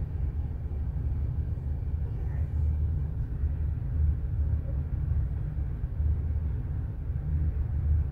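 A steady low rumble with little higher sound above it.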